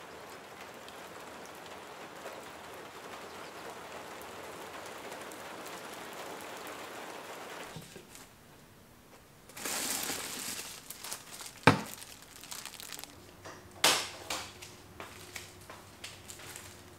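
Steady rain falling, an even hiss, for the first seven or eight seconds. Then a plastic bag of sliced bread crinkling as it is handled, with a sharp knock about twelve seconds in and a few more knocks and crinkles after.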